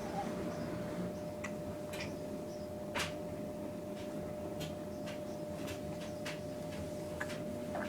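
Scattered soft clicks at irregular intervals, one louder about three seconds in, over a steady hum.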